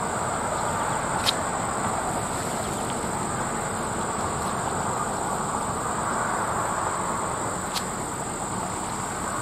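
Steady rush of wind with a constant high insect trill over it, and two faint clicks, about a second in and near the end.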